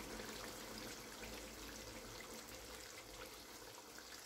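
Faint steady hiss of hot mutton gravy still sizzling in a wok just taken off the flame.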